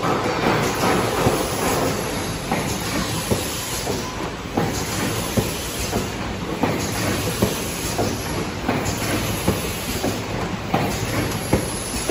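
Automatic cartoning machine for surgical face masks running, a steady mechanical clatter with sharp clicks and knocks about once a second as it forms and fills cartons.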